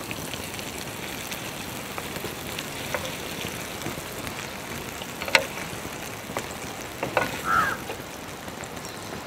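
Peri peri chicken pieces sizzling on a hot grill pan, a steady hiss, with a few sharp clicks of metal tongs, the loudest about five seconds in.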